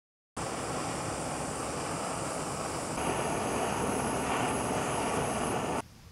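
Small backpacking canister stove burning at full flame under a pot, a steady roaring hiss of the gas burner. It starts abruptly, grows a little louder about halfway through, and cuts off near the end.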